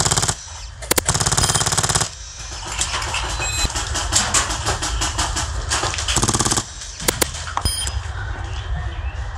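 HPA airsoft light machine gun (Polarstar-powered Stoner 96) firing full-auto bursts: a short one at the start, a longer one of about a second, and another short one past the six-second mark. Scattered single snaps sound in between.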